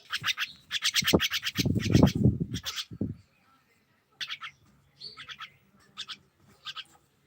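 A bird chirping in fast, even trains of short high notes, about eight a second, for the first three seconds, then in short bursts of chirps about once a second. A low rumbling noise sits under the chirps about two seconds in.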